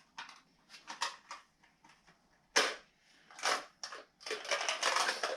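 Rummaging through a bag of tools and small parts: a string of sharp clicks and clatters, busiest near the end.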